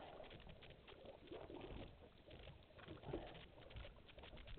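Near silence: a faint low rumble with a few faint, muffled knocks and smudges of sound.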